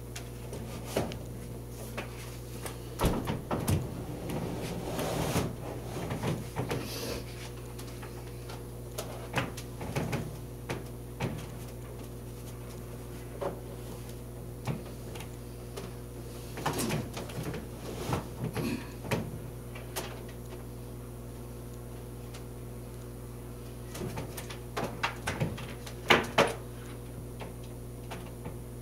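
Scattered clicks, knocks and rustles of hands working cables and pushing an HDMI plug into a TV's port, over a steady low hum.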